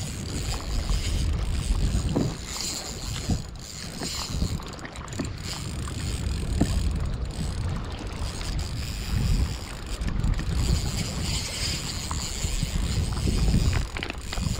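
Daiwa Fuego 3000 LT spinning reel being cranked, under wind rumbling and gusting on the microphone.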